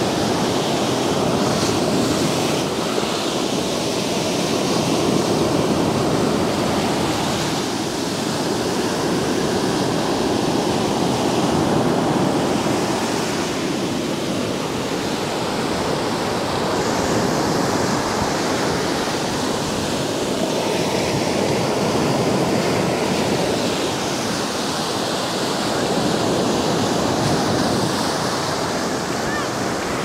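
Sea surf on a rough day: waves breaking offshore and foamy wash running up and back over wet sand, swelling and fading every several seconds.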